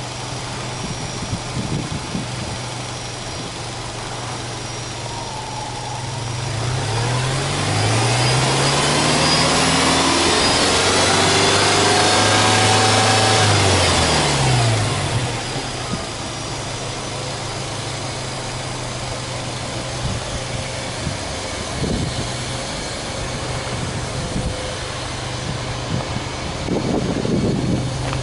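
Subaru Legacy B4 2.0 GT's turbocharged 2.0-litre EJ20 flat-four engine idling steadily, heard at the open engine bay. About seven seconds in it is revved up in neutral, held at high revs for several seconds, then let fall back to idle about fifteen seconds in.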